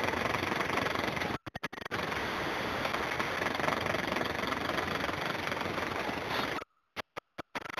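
Steady engine and road rumble of a vehicle, heard from inside its cab. It cuts out briefly about a second and a half in and drops away near the end.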